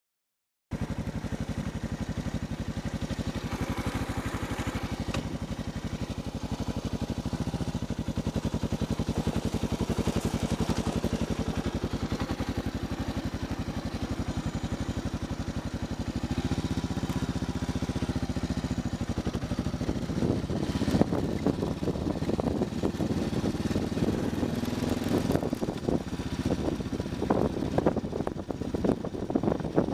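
Motorcycle engine running steadily, starting about a second in. About halfway through it changes note as the bike moves off, and from there it is riding a rough, rutted dirt track, with many irregular knocks and jolts over the engine.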